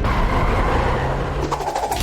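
Cartoon sound effect of a heavy vehicle's engine running with a low rumble, with a short rattle of quick clicks near the end.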